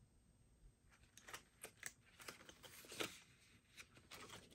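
Faint rustling and light clicks of paper banknotes and cash-binder pages being handled, starting about a second in.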